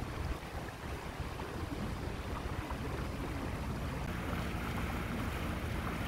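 A boat's engine running steadily under way, a low drone with a faint steady hum, under a hiss of water and wind.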